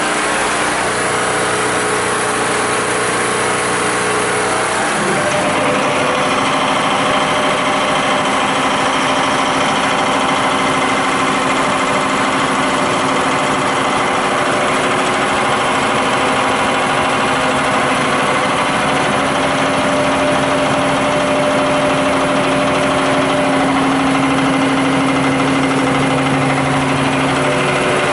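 Clarke Air Industrial three-phase air compressor running, its electric motor driving the piston pump in a steady mechanical drone. The tone changes about five seconds in, then runs on evenly.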